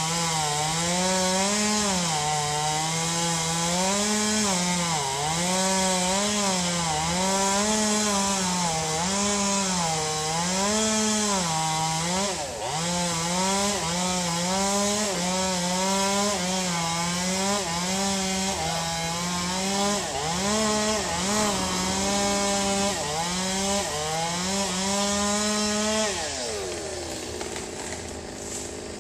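Small petrol engine of a wood-cutting power tool running hard into a tree stump, its pitch dipping and recovering every second or so as the cut loads it. About 26 seconds in the throttle is let off and the engine winds down to a lower, quieter note.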